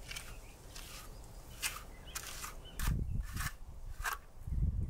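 Hand float scraping wet bonding cement across a cinder block wall in a series of short rasping strokes, about one every half second to a second.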